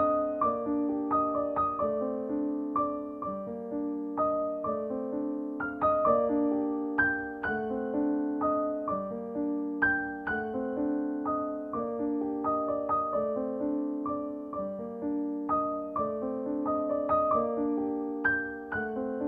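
Background music: a gentle keyboard melody of struck notes, several a second, each ringing and fading, with a steady repeating pattern.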